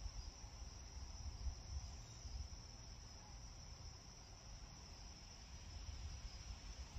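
Crickets trilling steadily in a faint night ambience, with a low rumble underneath.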